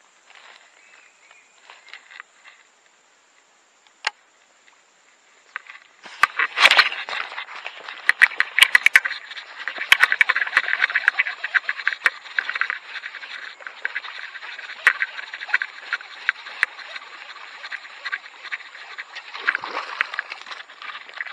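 A hooked kerandang snakehead being fought on a baitcasting rod and reel. A few sharp clicks come first, then a sudden loud burst about six and a half seconds in, followed by a dense, continuous run of rapid clicking and scraping from the fight that goes on to the end.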